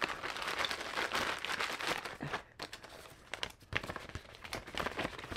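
Clear plastic toy bag crinkling and tearing as it is pulled open by hand: a dense rustle for about two and a half seconds, then sparser crackles and clicks as the package and its paper insert are handled.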